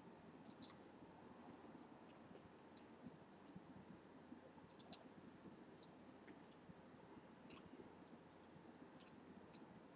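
Faint chewing of a chili cheese dog: small, wet mouth clicks and smacks, scattered irregularly.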